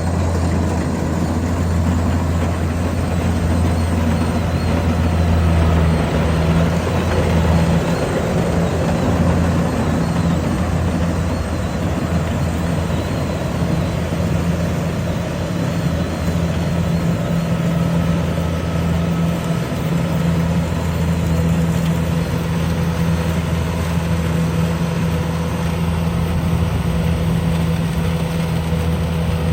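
Rice combine harvester running steadily, a continuous deep engine drone.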